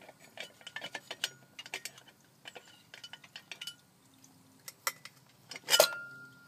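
Irregular metal clicking and clinking as a tool works the nut off the stud of a chrome air cleaner lid on a carbureted engine. Near the end comes one louder metallic clank that leaves a short ringing tone.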